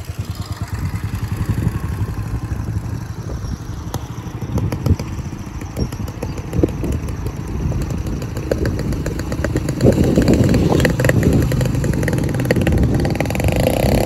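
Motorcycle engine running as it passes by, with the engine noise louder in the last few seconds.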